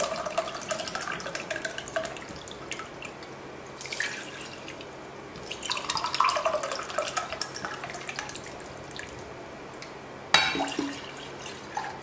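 Water poured in a thin stream from a plastic jug into a steel tumbler, trickling and splashing as the tumbler fills. A sharp clunk sounds near the end.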